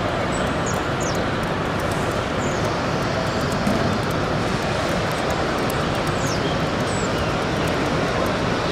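Steady crowd hubbub of a busy exhibition hall: many voices blended into an even din, with no single voice standing out.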